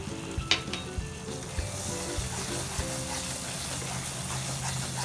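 Mawa, milk and sugar sizzling in a nonstick kadhai while a wooden spatula stirs and scrapes through it. There is a sharp scrape about half a second in, and the sizzle grows brighter after about a second.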